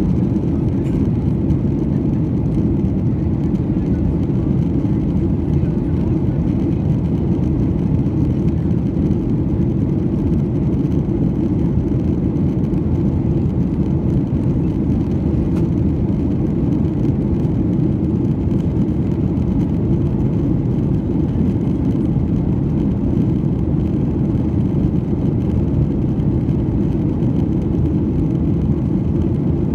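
Steady low cabin noise inside a Boeing 737-900 in flight, from its CFM56-7B jet engines and the airflow along the fuselage, holding even throughout.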